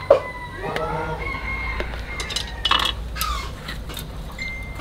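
A rooster crowing, with a few sharp clicks of wooden chopsticks against a metal bowl in the second half.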